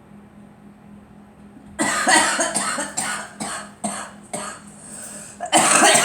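A girl coughing in a run of about six coughs that starts about two seconds in, the last one the loudest.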